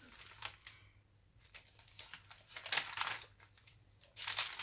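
Paper pages of a handmade junk journal rustling as they are handled and turned, in a few short crinkling rustles, the two loudest in the second half.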